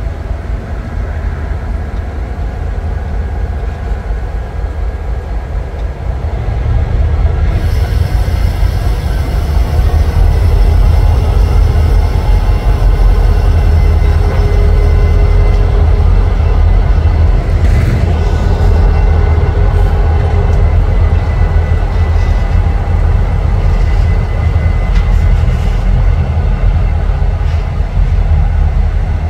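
A train rolling past with a heavy low rumble that grows louder about seven seconds in, thin steady wheel squeal above it, and a single clank about eighteen seconds in.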